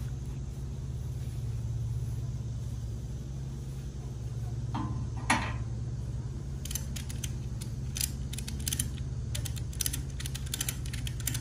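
Ratchet strap being cranked tight: one sharp clack about five seconds in, then a run of quick, uneven ratchet clicks, over a steady low hum.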